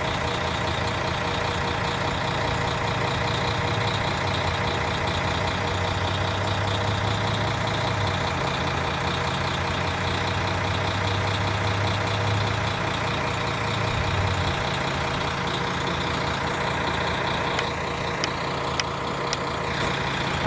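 O-Train diesel railcar engine idling steadily, with its deep hum swelling between about six and fourteen seconds in, and a few light clicks near the end.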